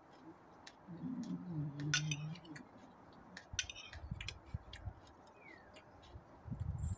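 Metal spoon and fork clicking and clinking against a bowl of noodle salad, with chewing and a short hummed 'mm' about a second in. A bird chirps faintly.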